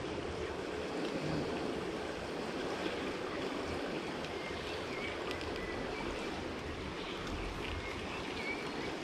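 Rain-swollen river flowing steadily: a continuous rush of water, with a few faint short chirps now and then.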